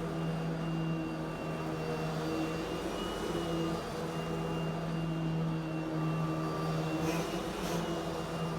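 Eureka Smart Vac vacuum cleaner running steadily, its motor giving a constant hum with a few fixed whining tones. Near the end there are two short hissing sounds.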